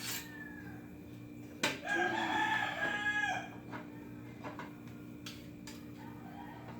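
A rooster crowing once, about two seconds in, for a second and a half, just after a sharp knock. Fainter crowing and a few light taps come before and after it.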